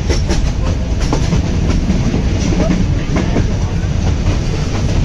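Nilgiri Mountain Railway toy train running along metre-gauge track: a steady loud rumble with irregular wheel clicks over the rails.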